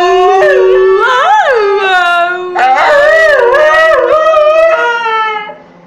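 A dog 'arguing': long, loud, wavering howl-like whines and yowls, rising and falling in pitch, in two long runs that stop near the end. It is the dog's vocal protest at being kept inside when it wants to go out.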